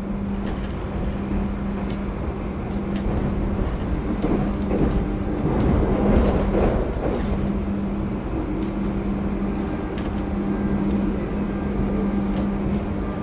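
Passenger train running, heard from inside the carriage: a steady hum and rumble with scattered clicks and rattles, swelling louder about six seconds in.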